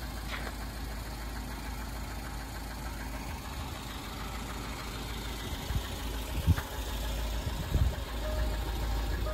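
Range Rover engine idling steadily, freshly restarted after a spark plug change, with a few short knocks about two thirds of the way in.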